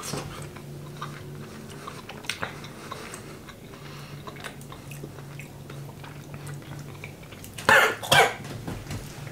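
A man chewing a mouthful of food with small wet clicks, then coughing twice in quick succession near the end. A steady low hum runs underneath.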